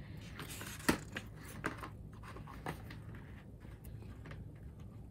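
Sheets of origami paper rustling and crackling as they are lifted and shuffled by hand, with a few sharp crackles about one, two and three seconds in.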